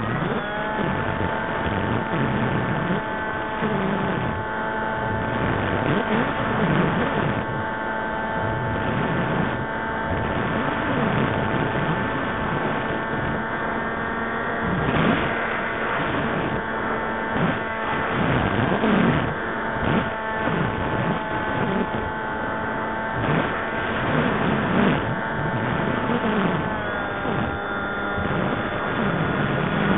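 Motor and propeller of an RC FPV model aircraft, heard through the onboard camera's microphone: a steady whine that steps up in pitch at the start and drops slightly near the end as the throttle changes, over rushing, buffeting airflow noise.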